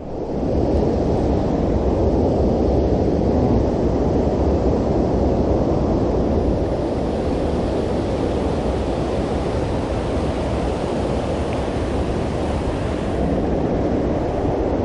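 Steady rushing of water pouring over a low concrete dam spillway into a creek.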